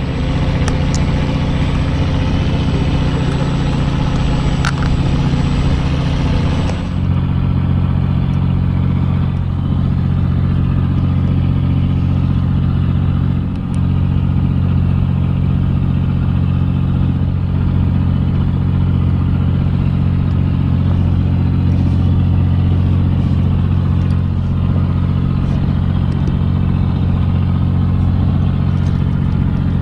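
A fishing boat's engine running steadily, a low, even drone.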